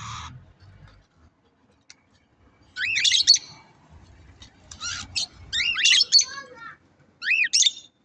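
Budgerigars chirping in four short bursts of quick, arching chirps, with a brief noisy rustle at the very start.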